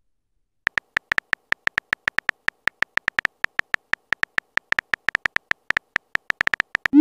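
Simulated keyboard ticks of a texting-story app, one short bright tick per letter as a message is typed out, about seven a second and slightly uneven. A short rising swoop near the end is the app's message-sent sound.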